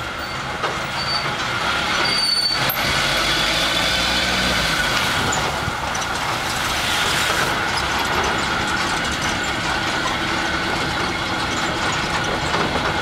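Open-sided resort tram moving along a paved path, heard from its rear seat: a steady drone of motor and tyres, with a faint steady whine over it.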